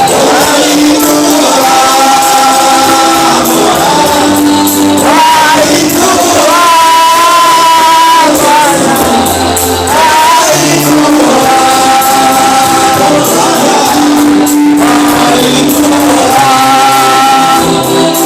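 Gospel worship music: voices singing held, wavering notes over a band accompaniment.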